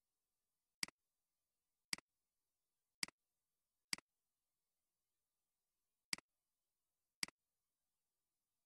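Computer mouse button clicking six times, about a second apart with a longer gap in the middle, each a sharp click followed right away by a fainter one.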